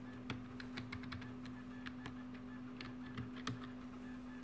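Computer keyboard keys tapped one at a time, an irregular run of separate clicks as a password is typed, over a steady low hum.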